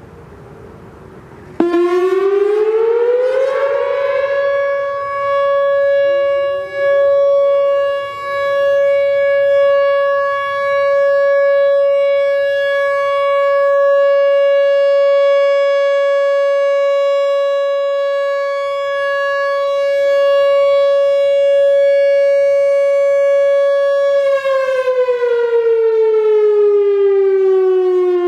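Whelen WPS-4004 electronic outdoor warning siren sounding a steady alert during a test. It cuts in suddenly, rises in pitch over about two seconds and holds one steady tone of about 560 Hz for about twenty seconds, with a couple of brief dips in loudness. Near the end it winds down, falling in pitch.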